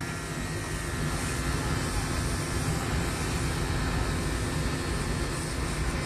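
A pressure washer running steadily, its jet hissing as it sprays the outdoor condenser unit of a split-type air conditioner for cleaning.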